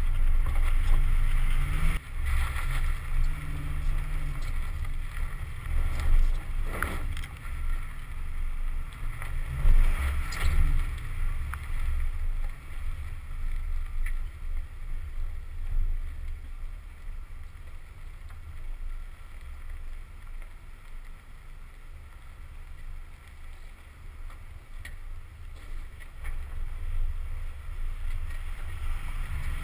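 Ford Raptor's 6.2-litre V8 engine running in a low rumble, with wind on the microphone. It revs up twice in the first dozen seconds, fades away through the middle, and grows louder again near the end.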